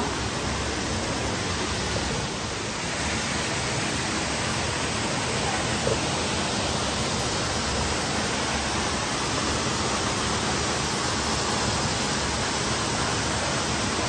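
Düden Waterfall pouring close by: a steady, loud rush of falling water.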